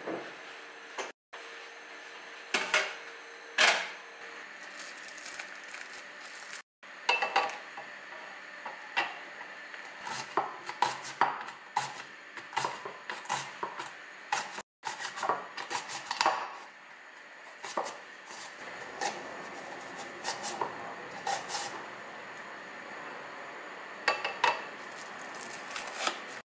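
A cucumber being run down a plastic julienne slicer into a bowl: rapid scraping and clicking strokes, about two a second, broken by knocks of kitchenware being handled.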